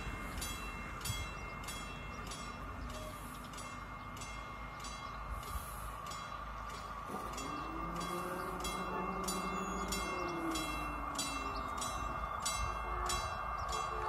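Level-crossing warning bell ringing in quick, even strokes, about two to three a second, warning of an approaching train. Under it a low rumble grows louder toward the end as the MAN diesel railcar draws nearer.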